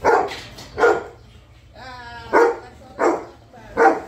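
Golden retriever barking five times in short single barks, with a brief whining cry between the second and third barks: distress at its owner leaving.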